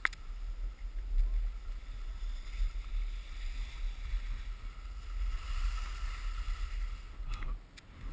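Wind rumbling on a body-worn camera's microphone, with skis hissing over packed snow during a downhill run. A sharp click comes right at the start, and the rumble eases off near the end as the run slows.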